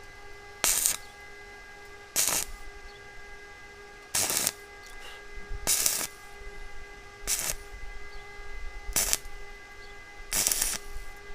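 Stick (electrode) arc welding on thin stainless steel, laid down as a row of short tack points: seven brief crackling hisses about one and a half seconds apart. A steady whine runs underneath and changes just after the end.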